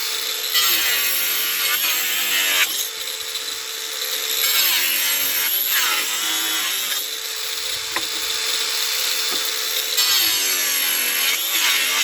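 DeWalt DCG405 cordless brushless angle grinder with a wood-cutting disc running and sawing through boards. It runs without a break, its pitch dropping several times as the disc bites into the wood and rising again as the load eases.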